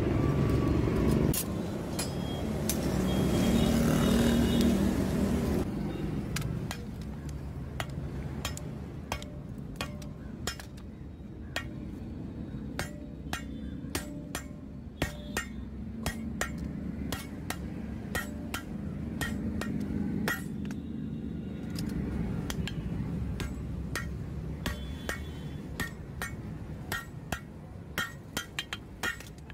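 Hand-hammer blows on red-hot leaf-spring steel against an anvil: dozens of sharp, ringing strikes at an irregular pace, often several a second, over a steady low hum. A louder rushing noise fills the first few seconds, before the hammering starts.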